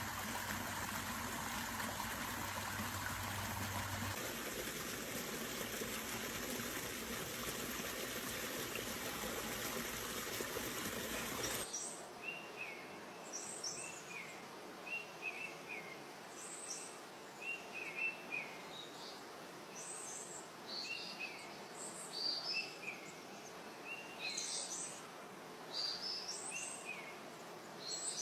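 Creek water running steadily, cutting off abruptly after about twelve seconds. Birds chirping follow, in short repeated calls at two pitches.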